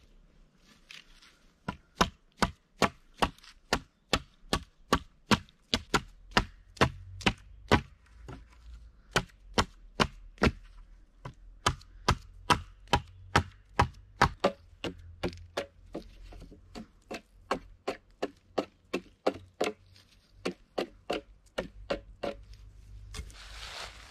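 A hatchet chopping into a wooden stick in quick, sharp strokes, about two a second with a couple of short pauses. A rustle of tarp fabric comes at the very end.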